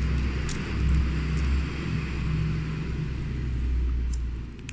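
Low, steady rumble of a running motor vehicle engine, dying away near the end, with a few faint light clicks.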